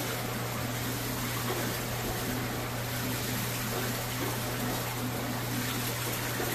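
Steady running noise of aquarium filtration in a fish room: trickling, bubbling water over a constant low pump hum.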